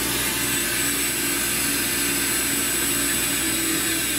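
Walter Helitronic Mini Power CNC tool and cutter grinder's spindle running steadily at 8,000 rpm, a constant high whine over a steady hiss of the machine's air.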